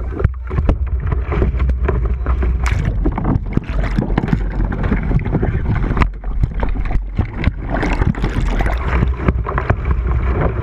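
River water splashing and churning around a kayak as it capsizes in a riffle, the bow-mounted camera's microphone dunked underwater partway through. Many sharp splashes over a steady low rumble on the microphone.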